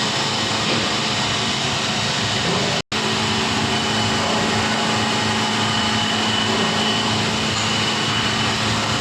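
Steady industrial machinery noise, a continuous mechanical hum with a few faint steady tones. It cuts out for a split second about three seconds in.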